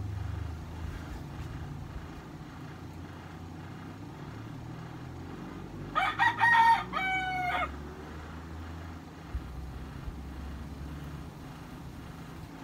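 A rooster crowing once, midway through, over a low steady hum.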